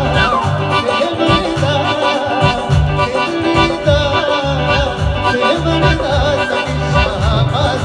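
Live band music through PA speakers: a sung melody over keyboard and a steady drum beat.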